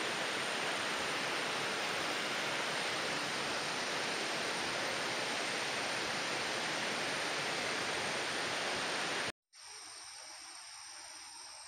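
Steady rushing of a flowing stream, even and unbroken, with a thin high steady tone above it. It cuts off abruptly about nine seconds in and gives way to a quieter hiss.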